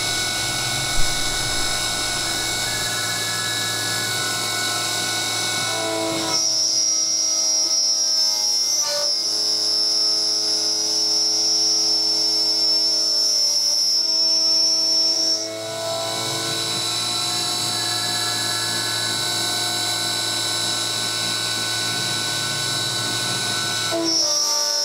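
CNC mill's BLDC spindle motor running with a steady whine while the cutter machines 6061 aluminium. A higher-pitched whine comes in about six seconds in, stops about fifteen seconds in, and returns near the end.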